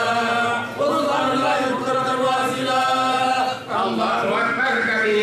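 A voice chanting in long held phrases, the pitch swooping and wavering within each phrase, with two short breaths between them, about a second in and near the end.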